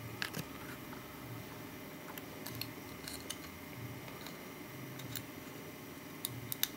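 Faint scattered clicks and taps of fingers handling a small printed circuit board and pressing on the 8-pin EEPROM chip in its socket, with a few quick clicks near the end.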